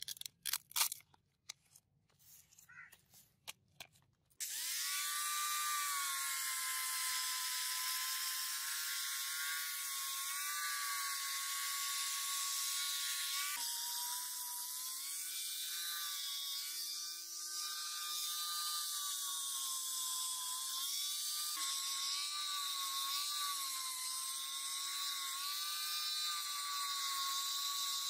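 A few scattered scrapes and clicks, then about four seconds in an electric angle grinder fitted with a sanding pad starts and runs with a steady whine, wet-sanding the steel sword blade with fine 1000-grit sandpaper. Its pitch drops briefly about halfway through.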